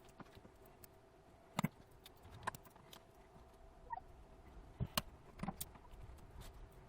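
Sporadic light clicks and taps of small tablet parts and tools being handled during reassembly, the two loudest about a second and a half and five seconds in, over a faint steady hum.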